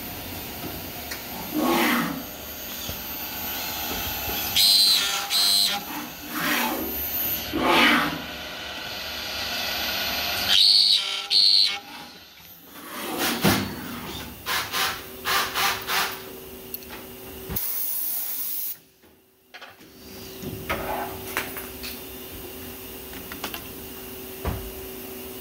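Mac 140/50 CNC profile processing centre machining a metal profile: repeated loud, sudden cutting passes of the end-mill spindle. About two-thirds of the way through comes a short burst of high hiss, then a brief dip, and a steady machine hum runs through the second half.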